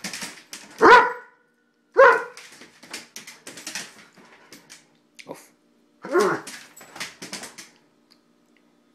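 Doberman barking excitedly, three loud barks (two close together, the third a few seconds later), with quieter yips and short clicks between, from its claws on the tile floor.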